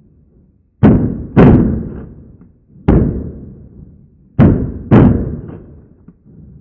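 Five shotgun shots, each dying away over about a second: a quick pair, a single, then another quick pair.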